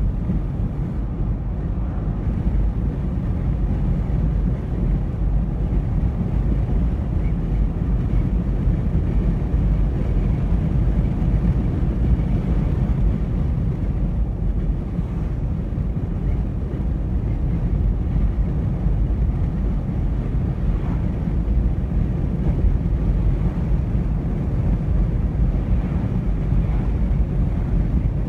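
Steady low rumble of road and tyre noise inside a moving car.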